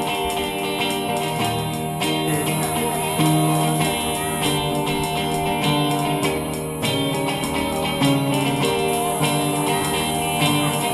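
Band music led by guitar, with a steady beat and bass.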